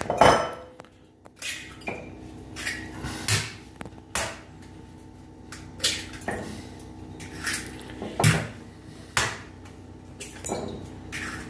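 Hen's eggs cracked one after another against the rim of a glass mixing bowl: a run of sharp taps and knocks, glass clinking, as the shells break and are set down on the counter.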